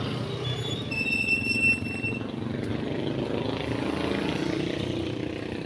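Motorcycles and other vehicles running past on the street close by, a steady low engine rumble. About a second in, a high squeal sounds for about a second.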